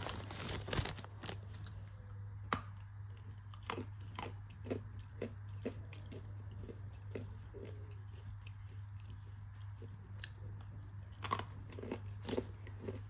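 A person chewing and crunching a piece of baked Mexican edible clay, with irregular crisp crunches about every half second that grow quicker and louder near the end. A steady low hum runs underneath.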